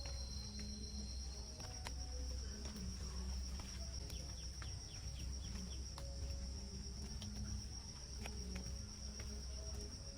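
Rainforest insects droning steadily at a high pitch, with scattered sharp clicks and a short run of quick chirps a few seconds in.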